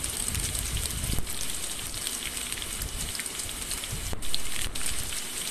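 Chopped onion sizzling in hot soybean oil in a kadai: a steady crackling sizzle with a brief louder sputter about four seconds in.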